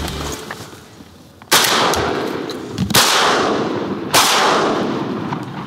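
Three shotgun shots in quick succession, about a second and a half apart and then just over a second apart, each with a long echoing tail that fades into the next.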